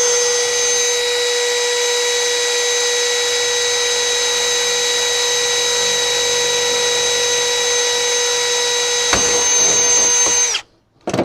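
Power drill running at one steady high speed, a constant whine, as it drills through the plastic miter-saw fence; a couple of knocks near the end, then the motor winds down and stops about ten and a half seconds in.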